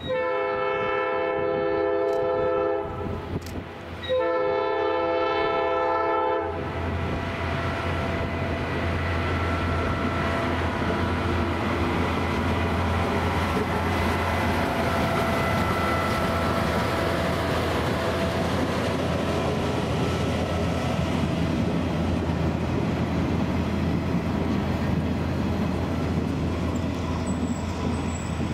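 Nathan P3 air horn on a locomotive crane sounding two long blasts, the second starting about a second after the first ends. Then the crane and its flatcar rumble steadily along the rails as they pass.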